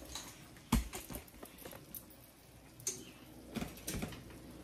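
A metal spoon scooping rice filling out of a frying pan: a few scattered clinks and knocks against the pan, the loudest about a second in.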